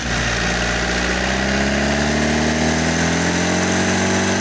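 Isuzu C190 four-cylinder diesel engine running and being revved by hand. Its speed climbs steadily over the first three seconds or so, then holds.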